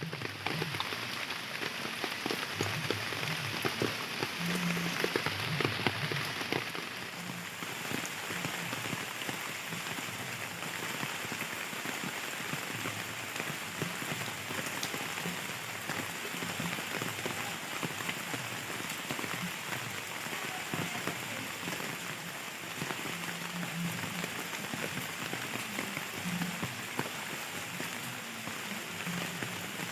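Steady rain falling, a continuous wash of sound with many separate drops ticking through it.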